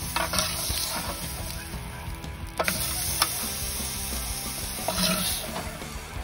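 Chuck roll steak sizzling on the grates of a Weber Q1200 gas grill, with a few sharp clicks of metal tongs on the meat and grates.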